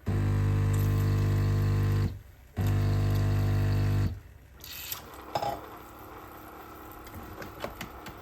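Electric home coffee machine humming loudly and steadily in two runs, about two seconds and then about a second and a half, with a short pause between. Softer clicks and handling sounds follow.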